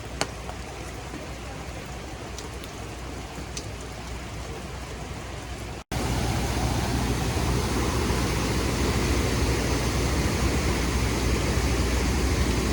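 Light rain falling, with a few sharp drip-like ticks. About six seconds in, after a cut, a louder steady rush of flowing water takes over.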